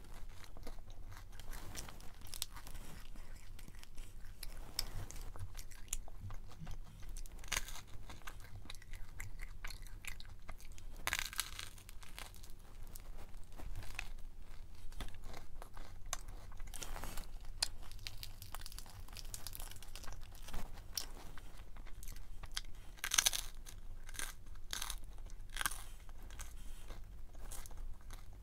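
A person biting and chewing crunchy food, a steady run of sharp crunches with the loudest about four-fifths of the way through.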